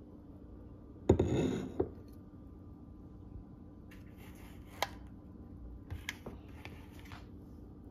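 A double-walled glass coffee mug set down on a countertop: one sharp knock about a second in with a brief ringing scrape. A few light clicks and taps follow later as a plastic yogurt cup is put down beside it.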